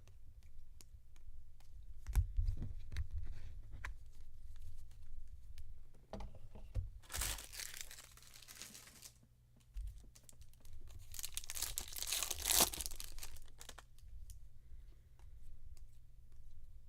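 Foil wrappers of 2018 Topps Chrome trading card packs being torn open, two long crinkly tears a few seconds apart, with cards and wrappers handled and tapped on the table between them.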